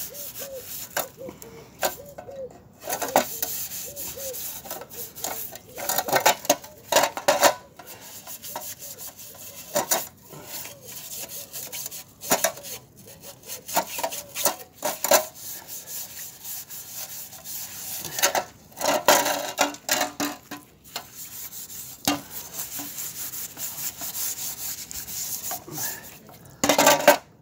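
Steel-wool scrubber pad scouring a sheet-metal engine shroud, in quick, irregular rasping strokes that scrub off the last of the stripped paint.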